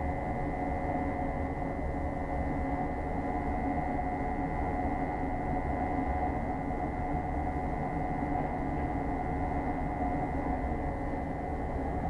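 Gas burner of a Bradford White commercial water heater running steadily at high fire: an even hum with a low rumble and a few steady tones, one of them high-pitched.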